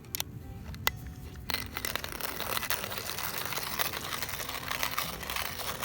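Hand-cranked coffee mill grinding freshly roasted coffee beans: a couple of clicks, then about a second and a half in a steady crunching grind begins.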